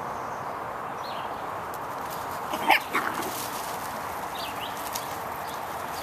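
A Coton de Tulear puppy gives a short, high bark about halfway through, then a second, fainter one, over a steady background hiss.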